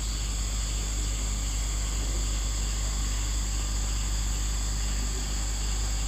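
Steady outdoor ambience: insects chirring in several high, steady tones over a constant low rumble.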